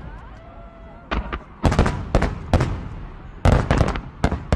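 Aerial fireworks shells bursting in quick succession: after a quieter first second, about a dozen sharp bangs in three clusters.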